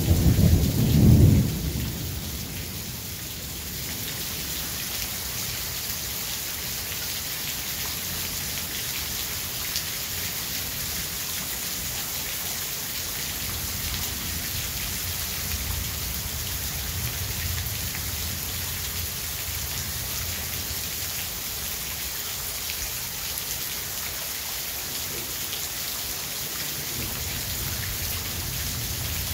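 Thunderstorm: steady rain hissing, with a loud roll of thunder in the first second or so that dies away, then fainter low rumbles of thunder around the middle and again near the end.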